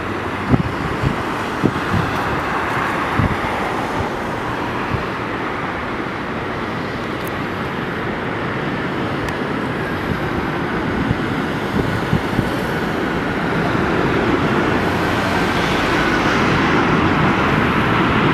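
Airbus A380 on final approach, its four turbofan engines a steady rushing drone that slowly grows louder as the jet comes nearer. A few gusts of wind thump on the microphone in the first few seconds.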